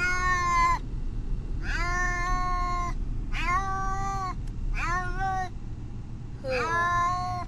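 Distressed domestic cat meowing five times in a row, long drawn-out calls a second or so apart, over a steady low rumble of car road noise.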